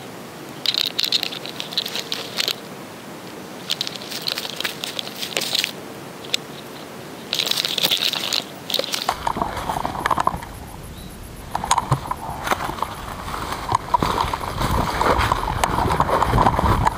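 Footsteps crunching and crackling through dry leaf litter and brush, in bursts a second or two long with short pauses between. About nine seconds in, this gives way to a closer, continuous rustling and scraping of brush and gear.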